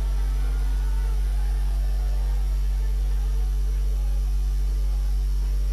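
Steady, loud low electrical hum, mains hum through the rally's public-address sound, with faint distant crowd voices beneath it.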